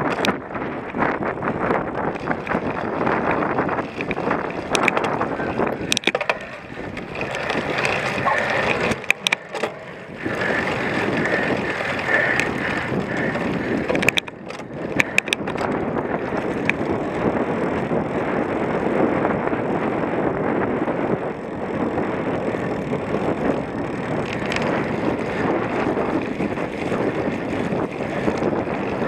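Wind rushing over the microphone and the rattle of a cyclocross bike ridden over rough ground, with frequent sharp clicks and knocks. The noise eases briefly twice, about a third and half of the way through.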